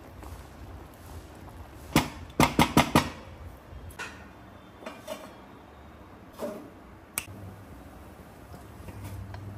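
Kitchen utensils knocking: a sharp knock about two seconds in, a quick run of four knocks right after, then a few scattered single clicks.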